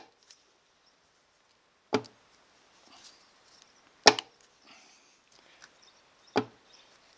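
Three sharp clunks about two seconds apart as the crankshaft of a Royal Enfield UCE engine is pushed side to side by hand at its rotor and knocks against the ends of its travel. The knocking is excessive crank end float, caused by the engine sprocket bolt having come undone and fallen out.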